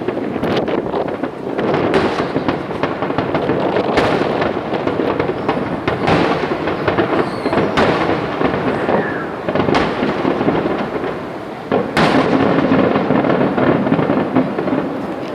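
Fireworks display: aerial shells bursting one after another in sharp booms, about every two seconds, over a continuous dense crackle and rumble.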